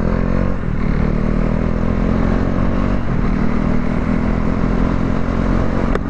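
KTM motorcycle engine accelerating through the gears, its pitch climbing and then dropping at an upshift about half a second in and again about three seconds in, before holding at a steady cruise. Wind and road noise rush steadily underneath.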